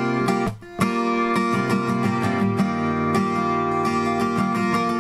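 Background music led by strummed acoustic guitar, with a brief gap about half a second in.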